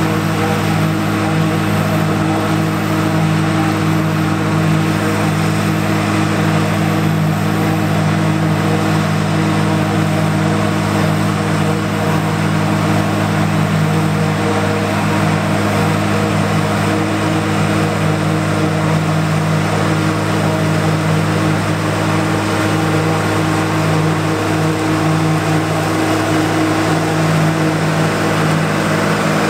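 John Deere 4455 tractor's six-cylinder turbo diesel running steadily under load, driving a PTO-powered John Deere 3975 forage harvester as it chops standing corn and blows it into a forage wagon. A steady engine note with the hiss and whir of the chopper.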